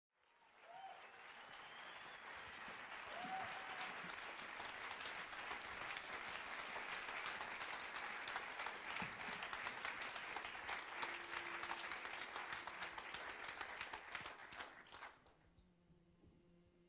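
Audience applauding, a dense patter of many hands clapping that dies away about fifteen seconds in, leaving a faint steady low tone.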